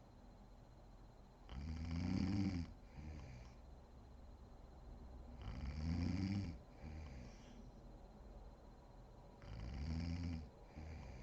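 A woman snoring in deep sleep: three snores about four seconds apart, each followed by a shorter, softer one.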